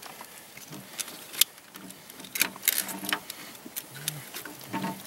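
Scattered sharp metallic clicks and clinks of fishing tackle and a lip-grip tool being handled, with faint murmured voices.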